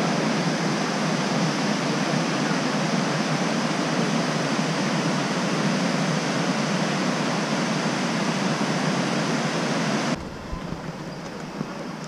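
Steady rushing of the Krka River's waterfalls and travertine cascades, an even hiss with no pitch or rhythm. About ten seconds in it drops suddenly to a much quieter hiss, with a single click near the end.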